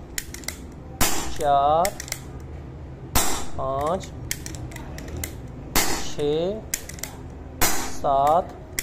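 PP750 PCP air pistol firing a string of shots, one sharp report every two seconds or so, four in a row. This is a ten-shot test to see how much air the freshly tuned, regulated pistol uses.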